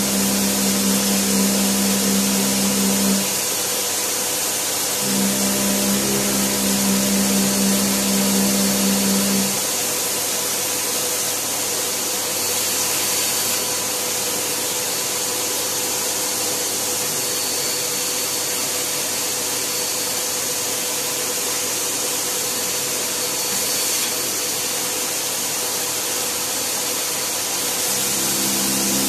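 Cordless drill boring holes for wall plugs into a wall. The drill runs in two stretches over the first nine seconds or so, stops, and starts again near the end. A vacuum cleaner, its hose held at the hole to catch the dust, runs steadily throughout.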